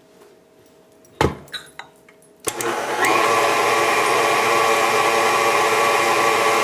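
A clunk about a second in, then a KitchenAid Artisan tilt-head stand mixer's motor starts about two and a half seconds in, rising for half a second and then running steadily with a whine. Its flat beater is creaming butter, sugar and peanut butter in the steel bowl.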